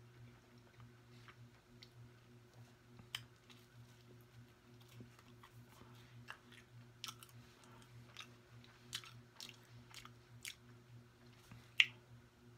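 A person chewing food with quiet wet mouth clicks and smacks, mouth sounds coming every second or so. One sharper click stands out near the end.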